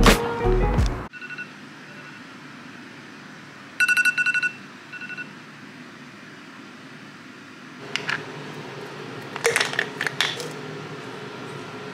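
Background music cuts off about a second in. Then an electronic device beeps: a quick run of short high beeps lasting under a second, and two fainter beeps just after. A few sharp clicks and knocks follow near the end.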